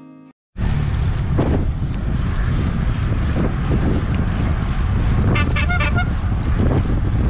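Wind buffeting the microphone of a camera riding on a moving bicycle, a loud steady rumble. About five and a half seconds in, a horn gives a quick series of short beeps.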